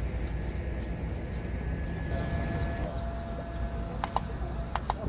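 Wind blowing over the microphone as a steady low rumble, with a few sharp clicks near the end.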